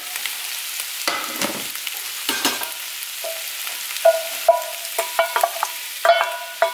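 Chicken and potato chunks sizzling in a frying pan, with a few knocks in the first seconds. From about four seconds in comes a quickening run of short, ringing metal clinks as a saucepan is tipped against the pan's rim to pour in the braising liquid.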